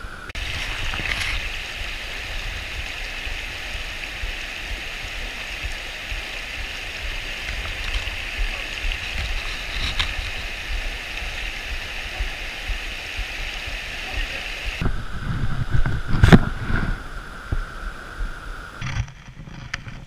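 River water rushing over a shallow riffle as a steady noise, with a low rumble beneath it. A single sharp knock or splash comes about 16 seconds in.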